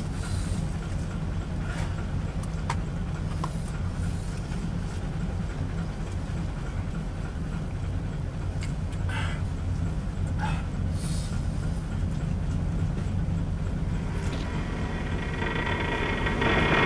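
Steady low drone of a small boat's engine, with a few faint knocks and clatters. Near the end a louder sound with many steady high tones swells in.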